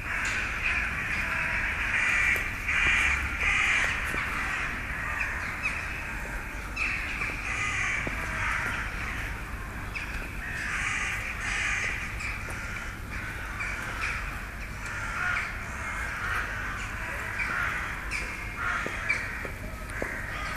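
A large flock of corvids calling all at once: a dense, unbroken chatter of many overlapping caws.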